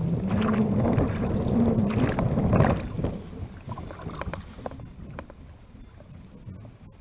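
Wind and water noise aboard a small wooden boat out on the river. It is loud with a wavering low hum for about the first three seconds, then drops to a quieter rush with scattered light knocks.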